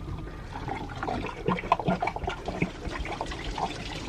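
Marine/RV antifreeze coolant being poured from a jug into a disconnected engine hose of a 4.3 MerCruiser, running down into the water pump and manifold with irregular gurgles.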